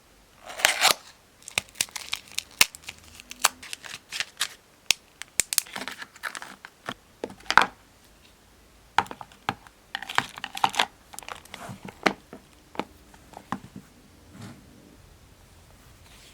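Hands-on crafting sounds: paper or packaging crinkling and tearing in short swishes, among many sharp clicks and taps of materials being handled, thinning out near the end.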